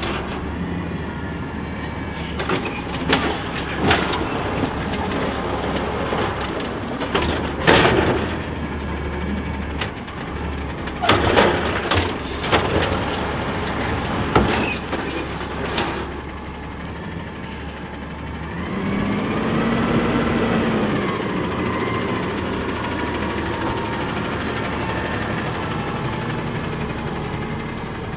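Natural-gas automated side-loader garbage truck idling with a steady low hum while its lifting arm dumps wheeled trash carts, with several loud knocks and clatters. About two-thirds of the way through, the engine revs up and falls back as the truck pulls away, then runs steadily.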